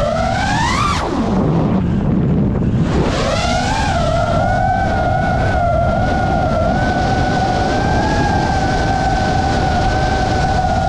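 FPV freestyle quadcopter's electric motors whining. The pitch climbs in the first second, drops sharply to a low hum for about two seconds as the throttle comes off, then rises back to a steady high whine that climbs again near the end. Wind rushes on the onboard microphone underneath.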